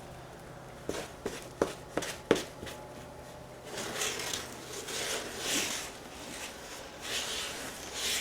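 Body filler being mixed with a spreader on a mixing palette. A few sharp taps come first, then repeated scraping strokes as the filler is worked together with a little fiberglass resin.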